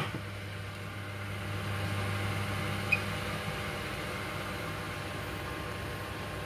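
Stir-fried vegetables cooking in a wok covered by a glass lid: a soft steady hiss over a constant low hum, with one small tick about three seconds in.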